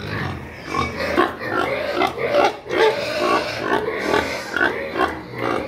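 Pig grunting in a run of short grunts, about two a second.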